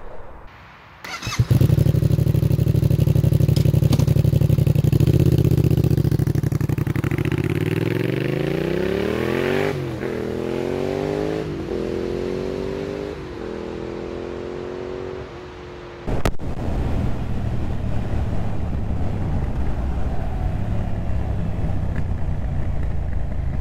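Yamaha MT-07's parallel-twin engine through a Shark Street GP aftermarket exhaust. It starts loud and steady at idle about a second in, then revs up under acceleration with about four upshifts, each a drop in pitch followed by a new climb. After a sharp click it runs on rough and uneven off the throttle, with backfiring from the exhaust.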